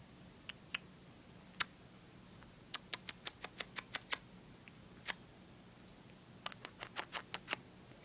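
Faint, sharp clicks or taps: a few single ones, then two quick runs of about six to eight clicks each, one near the middle and one near the end.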